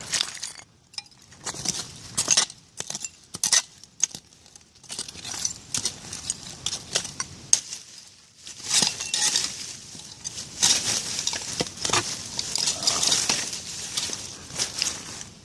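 Glass clinking and clattering as soil and broken bottle glass are dug through by hand: sharp clinks through the first half, then longer scraping noises from about halfway on.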